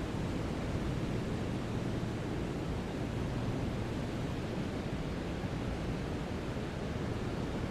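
Steady brown noise: an even, deep hiss weighted to the low end, with no changes or events.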